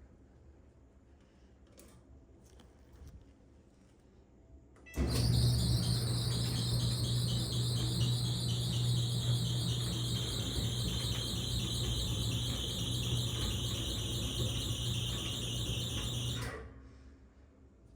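Whirlpool/Maytag Bravos dryer running with a loud, high-pitched squeal over a low motor hum; the squeal starts suddenly, sags slightly in pitch, and stops about eleven seconds later. The repairer puts the noise down to lack of maintenance.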